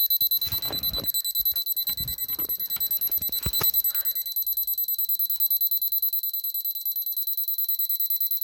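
Silver Crest digital alarm clock's alarm beeping: a high-pitched tone pulsing rapidly and evenly, without a break. A few knocks and bumps from handling come in the first four seconds.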